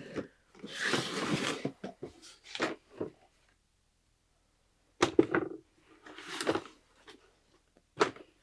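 Handling noise: two short rustling swishes and scattered light clicks and knocks, with about a second and a half of silence in the middle.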